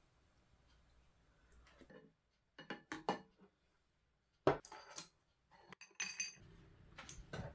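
Bowls and a small ceramic dish clinking together as they are stacked. There are a handful of separate clinks and knocks, the loudest about four and a half seconds in, and one rings briefly about six seconds in.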